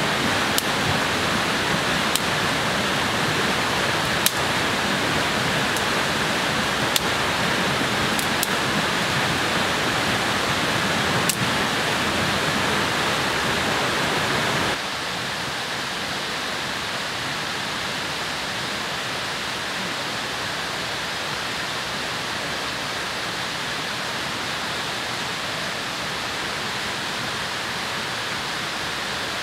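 Steady rushing water noise with a few sharp ticks in the first half. About halfway through it drops suddenly to a quieter, duller hiss.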